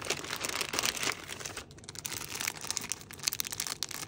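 Packaging being handled and unwrapped, crinkling and rustling with irregular crackles throughout.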